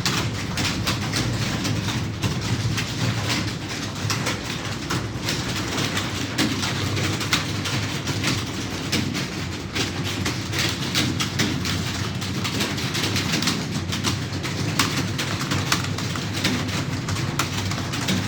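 Fast, continuous typing on a computer keyboard: a rapid, uneven stream of key clicks, with a steady low rumble underneath.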